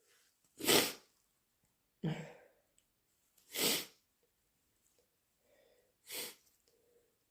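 A person sneezing repeatedly in a run of wet sneezes: four short bursts a second or two apart.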